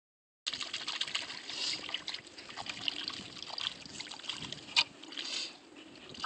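Hand swishing and splashing the water in a shallow plastic kiddie pool: irregular trickling splashes that start suddenly about half a second in, with one sharp click near the end.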